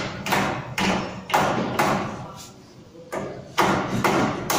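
Repeated hammer blows, about two a second, each ringing briefly after the strike, with a short lull about halfway through.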